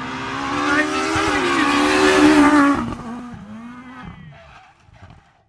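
Rally car at full throttle on a tarmac stage approaching and passing close by, engine note climbing as it nears and loudest about two and a half seconds in. The pitch then drops sharply as it goes past, and the sound fades away over the next couple of seconds.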